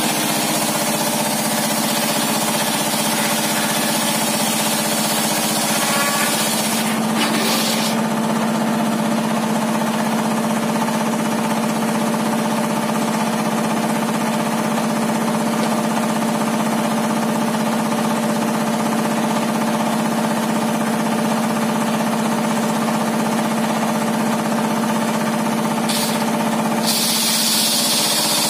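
Homemade circular-saw table running steadily, with a strong, even hum from its drive and blade. A high hiss over it drops away about seven seconds in and comes back near the end.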